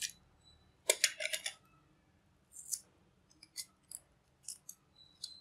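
A utility knife scratching through paper insulating tape on a small transformer bobbin, and the tape being peeled off the copper winding: a string of short, sharp, crackly scrapes, the loudest about a second in.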